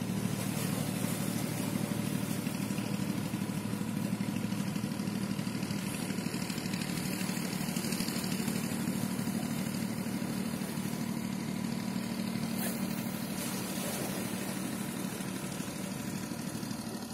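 Boat engine running steadily with a low, even hum and a hiss of wind and water over it; it eases off slightly near the end.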